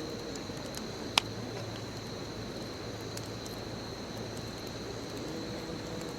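Wood fire burning with a steady hiss and scattered small crackles, and one loud, sharp pop about a second in. A continuous high insect trill, like a cricket, runs underneath.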